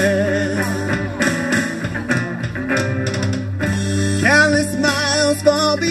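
Live song with electric guitar over a steady low bass line, between vocal phrases. A man's singing voice comes back in about four seconds in, holding wavering notes.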